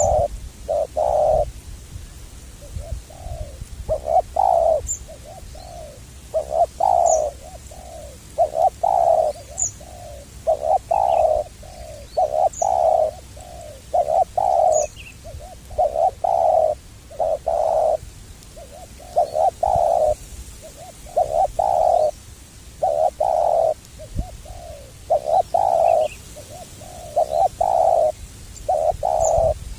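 Spotted doves (tekukur) cooing over and over, phrase after phrase of low coos, with a few faint high chirps from small birds.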